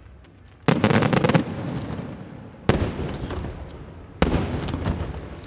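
Aerial firework shells bursting. About a second in comes a loud bang followed by a quick run of crackles, then two more single bangs, each dying away over a second or so.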